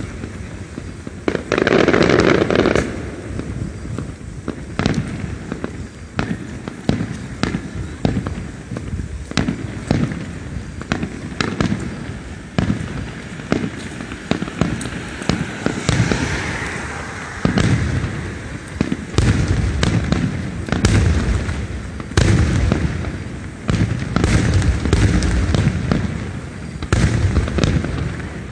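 Aerial fireworks display: shells bursting in a rapid series of booms and sharp cracks, with crackling between them.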